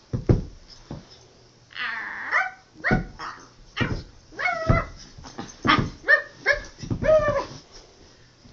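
Small white poodle giving play yips and barks: a high whine about two seconds in, then a string of short, high yips.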